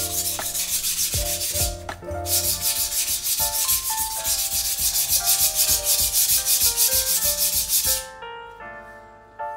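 Single-bevel Suisin usuba knife blade stroked rapidly back and forth on a coarse whetstone: gritty scraping strokes, several a second. They break briefly about two seconds in and stop about eight seconds in. Background music with keyboard-like notes plays underneath.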